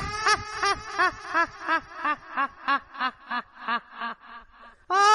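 A high-pitched cackling laugh, the kind of ghostly laugh used as a horror sound effect. It opens on a held note, then runs as a long string of about three 'ha' pulses a second that slowly fall in pitch, and starts over again near the end.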